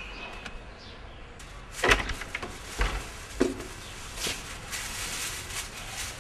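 A few sharp knocks and thumps, the loudest about two seconds in and two more within the next second and a half, then lighter clicks and rustling: boxes being handled and unloaded at a car's open rear hatch.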